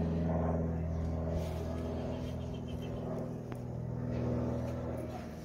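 A low, steady motor hum with a pitched drone, a little louder about four seconds in.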